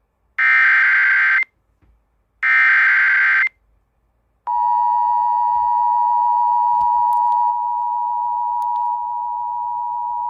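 Emergency Alert System SAME header data bursts: two one-second bursts of digital tones, about two seconds apart. Then, about four and a half seconds in, the steady two-tone EAS attention signal (853 Hz and 960 Hz) starts and carries on.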